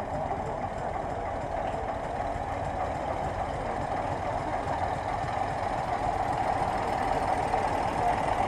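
Old tractor engine chugging steadily as the tractor drives slowly past, growing a little louder toward the end.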